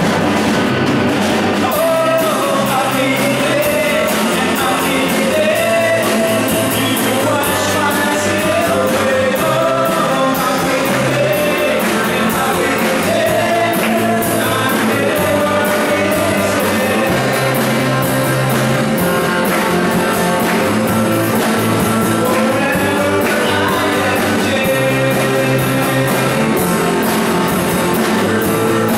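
A group of people singing a song together from lyric sheets, accompanied by guitars.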